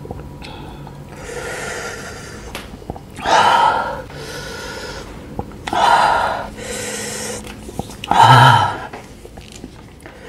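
A man breathing hard through his mouth against the burn of a super-hot chili chip: softer breaths in and three loud, huffing breaths out about two and a half seconds apart, the last one with a bit of voice.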